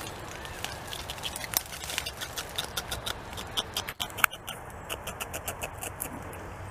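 North American beaver chewing bark: a quick run of crisp crunching clicks from its teeth, about five or six a second.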